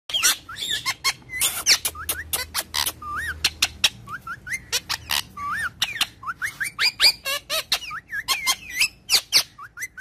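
Rose-ringed parakeets (Indian ringnecks) calling in a rapid run of short, sharp squawks mixed with rising-and-falling whistled chirps.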